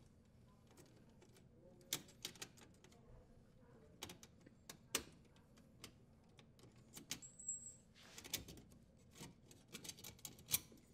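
Faint, irregular metallic clicks and light rattles as a dishwasher's power-cord strain relief fitting and its lock nut are unthreaded and worked, with the power wires, out of the sheet-metal junction box.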